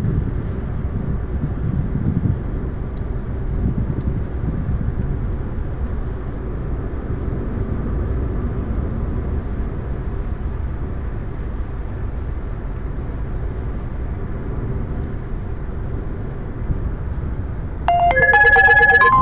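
Steady road and engine noise inside a moving car's cabin at highway speed. Near the end, a louder electronic tune of stepping pitched notes starts and becomes the loudest sound.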